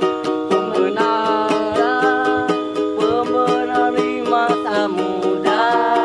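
Music: a strummed acoustic string instrument keeping a steady rhythm of about three to four strokes a second, under a voice holding long sung notes and sliding between pitches without clear words.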